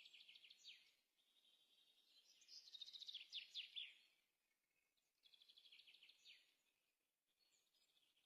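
Faint songbird singing: three rapid trilled phrases about two and a half seconds apart, each ending in quick falling notes, the middle one loudest.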